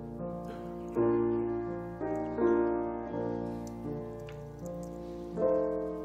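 Slow, soft piano music: chords struck every second or so, each left to ring and fade.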